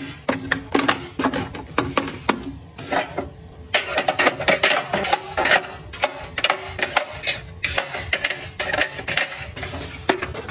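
A quick, uneven run of small clicks, taps and knocks, as of hard objects being handled and set down, busiest from about four seconds in.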